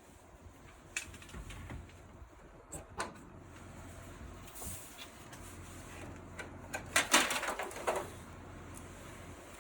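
Clicks and clatter of a wall-mounted air conditioner's parts being handled and unclipped during disassembly: single clicks a second and three seconds in, then a louder burst of rattling clicks about seven seconds in.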